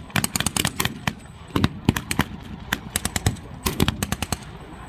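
Blank-firing small arms in a mock battle: quick bursts of automatic fire, including a Browning Automatic Rifle, mixed with scattered single rifle shots.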